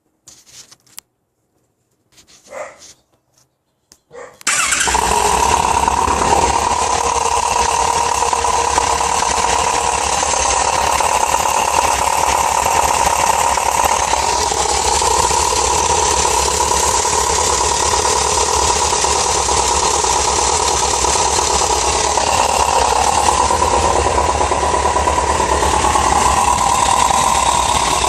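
A few faint clicks, then about four and a half seconds in a vehicle engine starts abruptly and runs steadily and loudly with a harsh, horrible noise that the owner cannot name.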